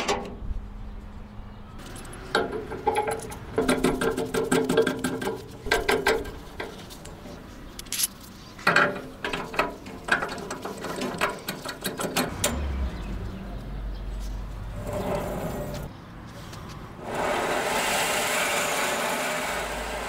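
Metal-on-metal clicks and knocks in two bunches of handling noise while steel parts and tools are worked on the bandsaw's blade-guide bearing assembly, followed near the end by a steady hiss.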